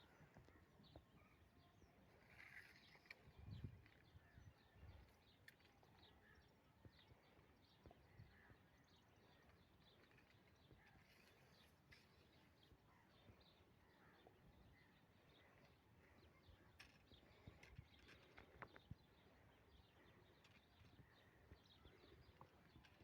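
Near silence: faint outdoor ambience with scattered small clicks and faint bird chirps.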